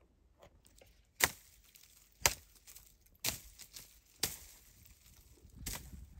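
Dry twigs snapping in brush: four sharp cracks about a second apart, then a weaker one near the end.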